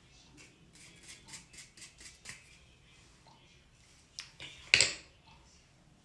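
Small handling noises of makeup tools: a quick run of about six light scratchy strokes, then a sharper knock about three-quarters of the way in as a makeup brush is set down on the countertop.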